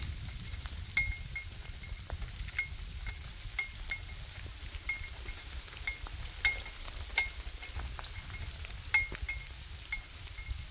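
Torrential rain falling steadily as a hiss over a low rumble, with irregular high metallic clinks, a few louder ones standing out.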